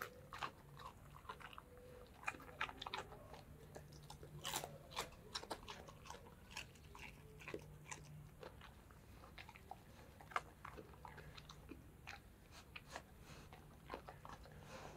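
Dog chewing raw carrot pieces: an irregular run of crisp, faint crunches as it bites down.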